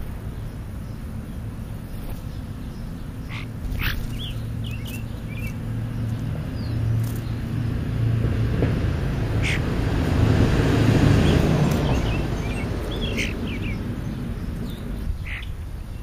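Birds chirping in short scattered calls, over a steady low rumble. A vehicle driving past swells to its loudest a little past the middle, then fades.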